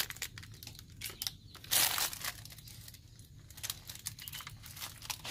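Clear plastic wrap crinkling and rustling in irregular bursts as it is pulled off a new motorcycle cylinder block by hand, with one louder burst about two seconds in.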